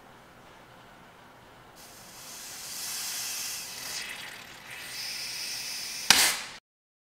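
Compressed air hissing from a blow gun pressed into an Audi A4 rear brake caliper to force the piston out of its bore, varying in strength, then a sudden loud blast of air about six seconds in as the piston lets go against the wooden block, after which the sound cuts off.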